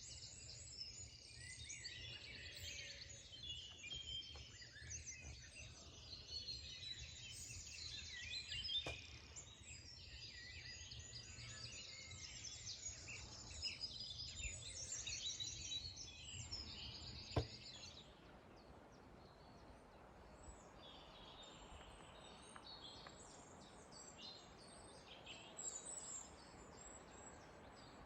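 Dawn chorus of many woodland songbirds singing at once, a dense tangle of chirps and trills. About two-thirds of the way through, after a single sharp click, the singing thins to fewer, sparser songs.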